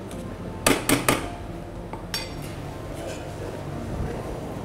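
Kitchenware clinking and knocking, metal and glass: three quick knocks about a second in, then a short ringing clink, with a steady low hum underneath.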